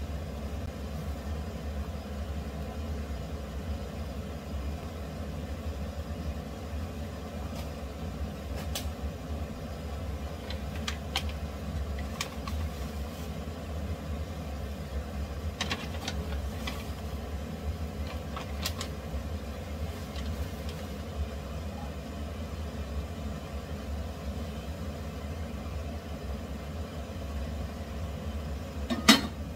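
Steady low rumble and bubbling of a stainless pan of broth at a hard boil on a gas stove. Light clicks of a spoon against the pan come every few seconds in the middle, and there is one sharp clank near the end.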